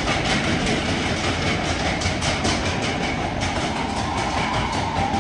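Roller-coaster bobsled train rumbling along its steel track, with a rapid, uneven clacking and rattling from the wheels and track.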